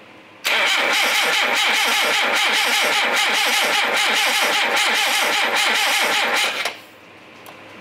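Starter motor cranking the Talbot Sunbeam Lotus's 2.2-litre Lotus twin-cam four-cylinder engine for about six seconds, with an even rhythm of compression strokes, then stopping without the engine catching. It turns over very slow, which the crew puts down to a weak battery.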